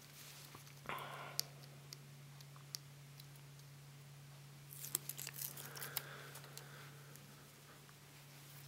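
Faint handling noises of small parts being picked up and set down on a table: a few light clicks, then a cluster of clicks and a brief rustle in the middle. A steady low electrical hum runs underneath.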